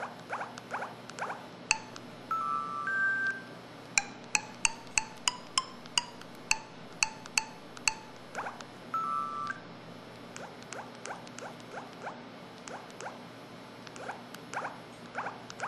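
LG-SD1500 mobile phone playing its built-in sound effects: a series of short electronic blips and clicks, evenly spaced at about three a second in the middle. Two brief two-tone beeps come early on and about nine seconds in.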